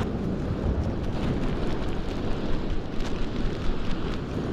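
Ocean surf washing over a rock ledge, with wind buffeting the microphone in an uneven low rumble and a few faint ticks.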